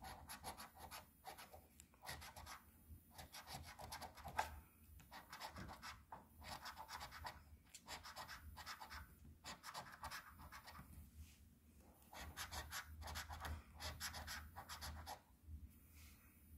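A metal coin scraping the coating off a paper scratch-off lottery ticket: faint, quick rasping strokes in bursts, with short pauses between them.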